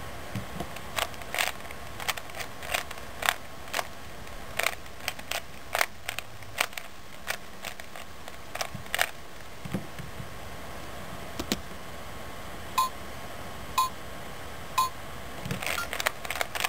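A Rubik's Cube being turned, its plastic layers clicking in irregular bursts for several seconds. Then come three short electronic beeps a second apart, followed by a quick run of turning clicks as the cube is solved in a few moves.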